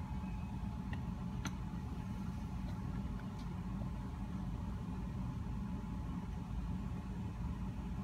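A steady low mechanical rumble with a thin steady whine above it and a few faint ticks.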